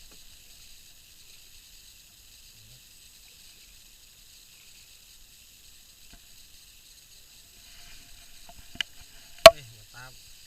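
A steady faint high hiss, broken near the end by a sharp click and, a moment later, a louder sharp knock.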